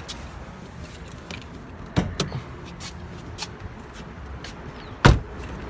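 Clicks and clunks of a Shelby GT350's hood being released and unlatched: a sharp knock about two seconds in and a louder thump about five seconds in, with lighter clicks between.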